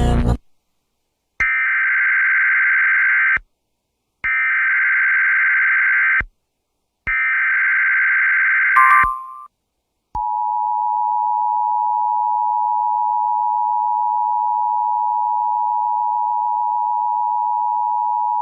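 Emergency Alert System (EAS) alert opening: three buzzy SAME header data bursts of about two seconds each with short gaps between, then, after a brief tone, the steady two-tone EAS attention signal held for about eight seconds. This announces a National Weather Service Severe Thunderstorm Watch.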